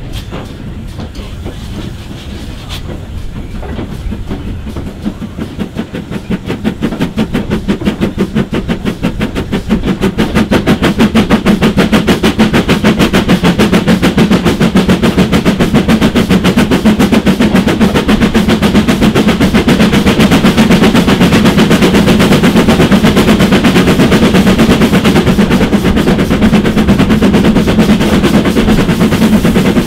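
GWR 5521 (running as L.150), a small prairie tank engine, working hard as a banker: its chimney exhaust beats come quicker and louder as it gathers speed over the first ten seconds or so, then settle into a rapid, steady, loud beat.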